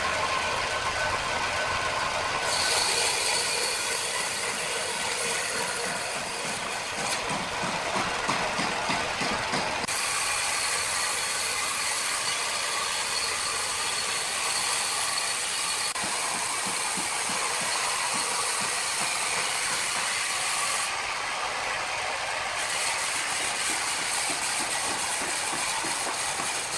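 Sawmill machinery running with a steady mechanical din and fast rattling clatter. The sound changes character abruptly several times along the way.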